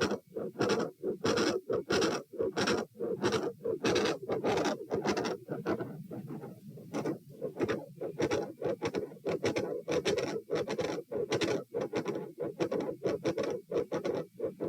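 Heart sounds at the aortic area: a fast heartbeat of about two beats a second, each beat with two short thuds, with a very loud, harsh murmur filling the gaps between them. Briefly quieter about six seconds in.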